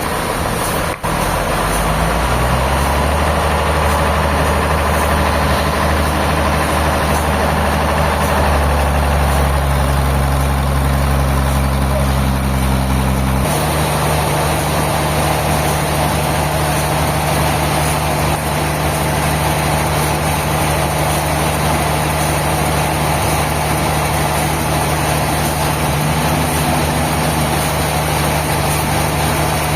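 A heavy engine running steadily, its note climbing in the first few seconds, then changing suddenly to a different steady tone about halfway through.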